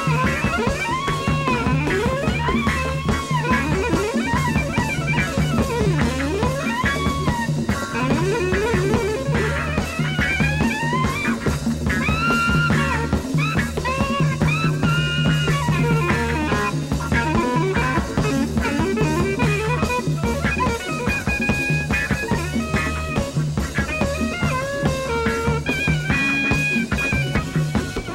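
Soprano saxophone soloing in winding, bending runs over an electric jazz-rock band of electric guitars, electric bass and drum kit playing a steady groove.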